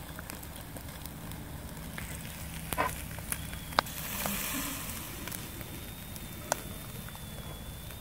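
Chicken wings sizzling on skewers over a charcoal grill, with three sharp pops of fat or charcoal, the loudest about four seconds in, over a steady low hum.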